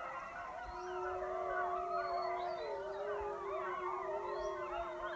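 Wolf pack howling in chorus: many overlapping, wavering howls at once, with one long low howl starting about a second in and held to the end.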